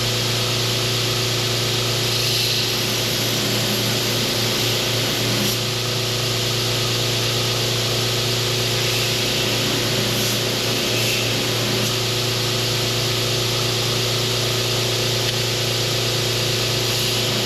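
Grinder running steadily, grinding the oil, grime and protective coating off bars of 15N20 and 80CrV2 steel: a constant hum under an even hiss of abrasive on steel.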